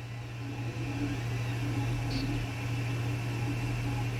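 A machine's steady low hum with a faint high whine above it, unchanging throughout.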